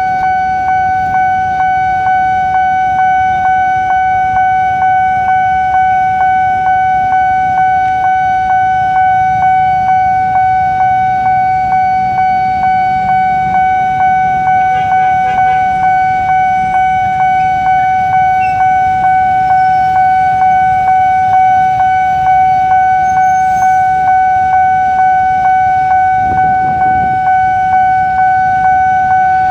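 Railway level-crossing warning bell sounding continuously: a steady high ringing tone struck in an even, repeating rhythm, warning that a train is approaching while the barrier is down.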